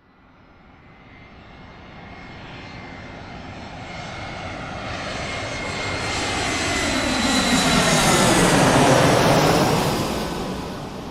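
Airplane flying over: its engine sound starts faintly, grows steadily louder to a peak about eight to nine seconds in, then fades as it passes, with a faint steady whine on top.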